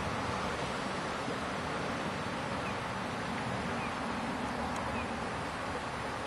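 Steady rush of river water, with wind noise on the microphone.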